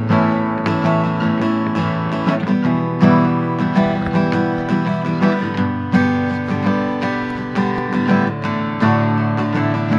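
Background music: a strummed acoustic guitar piece.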